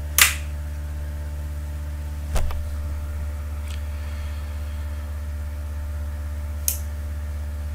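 Steady low electrical hum from a control panel's power supply, with four sharp switch clicks as the panel is powered up: the first right at the start is the loudest, the second, about two and a half seconds in, comes with a dull thump.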